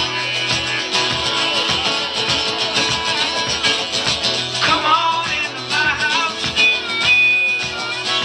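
Live blues band: acoustic guitar and a drum kit playing a steady groove, with a high melody line that bends in pitch coming in about halfway through.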